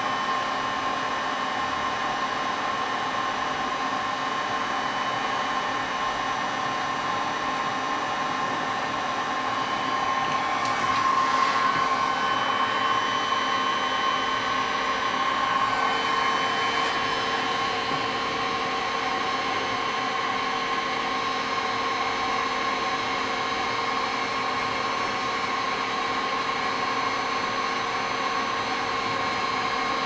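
Hot-air rework gun blowing steadily, a whirring hiss with a steady whine, heating the tablet's charging-port board to melt the solder while a new micro USB port is seated. It swells a little about eleven seconds in.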